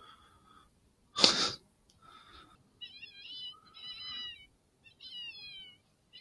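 A single loud splash in the creek about a second in, made by a beaver. Then a run of high animal calls that waver and slide downward, several in a row.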